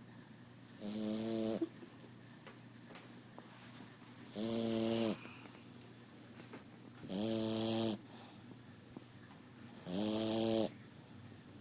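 Flat-faced pet snoring: four snores about three seconds apart, each a short pitched rasp lasting under a second. The snoring comes from its pushed-in face.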